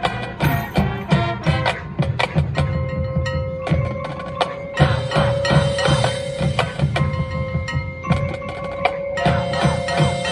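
High school marching band playing its field show: many sharp percussion strikes, with mallet keyboards and drums, over long held notes.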